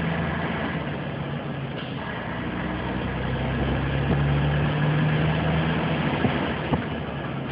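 DAF semi-trailer truck's diesel engine running under way, heard from inside the cab with road and air noise; the engine drone drops back early on and comes up strongly again in the middle. Two short knocks near the end.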